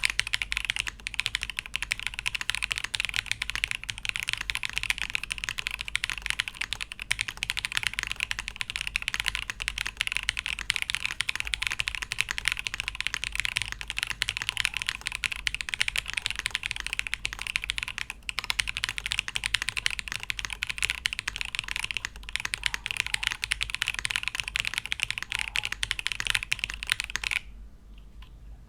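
Fast, continuous typing on a Chilkey ND TKL mechanical keyboard fitted with Kailh Blue Lotus switches, keystrokes clacking in a dense stream. The typing stops suddenly near the end.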